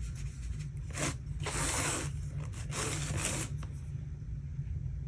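Paintbrush scrubbing paint onto watercolour paper: three scratchy strokes, the longest about one and a half seconds in, over a steady low hum.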